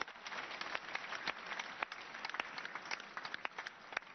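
Congregation applauding: many hands clapping at once, easing off slightly near the end.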